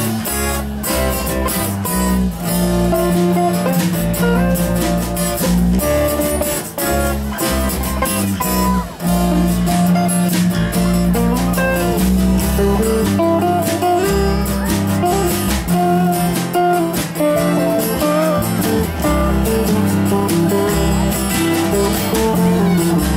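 Live light jazz instrumental played on several acoustic guitars and a guitar played flat on the lap, with no singing.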